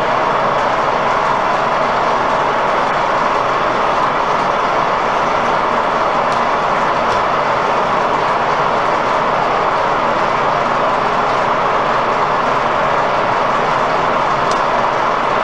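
Värnamo horizontal milling machine running, its motor and gearbox turning with the table power feed engaged, giving a loud, steady mechanical noise.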